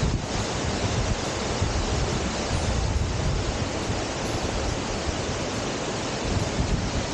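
Steady rush of fast-flowing water, with wind buffeting the microphone.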